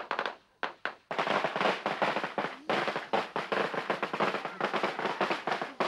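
A string of firecrackers going off: a few separate bangs at first, then from about a second in a dense, rapid crackle of pops that carries on.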